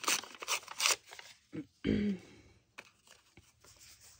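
A strip of paper being pulled apart by hand: a quick run of rips and crackles in the first second. A short hum of voice comes just before the two-second mark, followed by a few faint paper taps as the strip is laid on the page.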